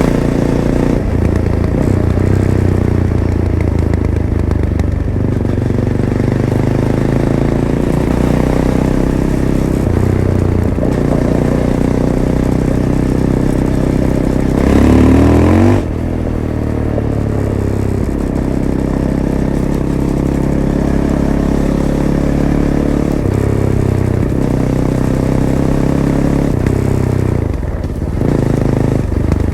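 Fantic Caballero 500's single-cylinder engine running through its stock Arrow exhaust while riding, its pitch rising and falling with the throttle. About fifteen seconds in, a louder rising rev cuts off sharply as the revs drop.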